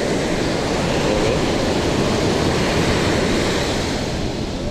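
Ocean surf breaking and washing up a sandy beach, a steady rushing noise, with some wind on the microphone.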